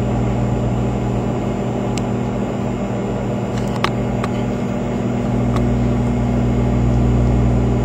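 Microwave oven running with a steady electrical hum while it heats a bar of soap, with a few faint ticks now and then.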